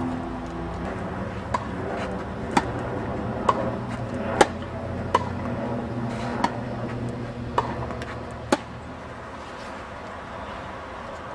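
Tennis racket striking the ball in a quick volley exchange at the net: eight sharp pops roughly a second apart.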